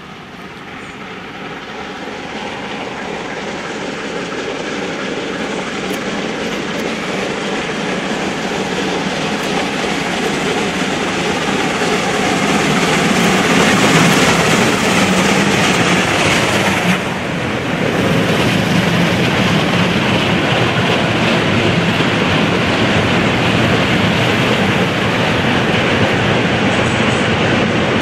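Steam locomotive 44 1093-2, a German class 44 heavy freight 2-10-0, hauling a long train of hopper wagons approaches, getting steadily louder, and passes close by about halfway through. After it the wagons' wheels keep rolling by on the rails, loud and steady.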